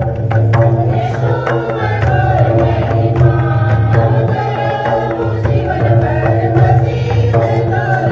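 Festive Indian folk music: quick hand-drum strokes over a steady held melody, playing without a break.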